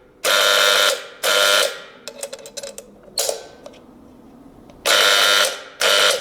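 TIPTOP TP-D10 stage curtain drop controller buzzing loudly as its clamps are powered open, in about five short bursts of about half a second each, with light clicks of the clamps between them.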